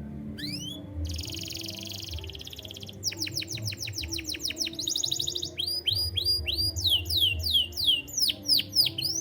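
Domestic canary singing a varied song. It opens on a rising whistle, runs into fast buzzy trills and rapid strings of repeated notes, and ends with a series of quick falling sweeps.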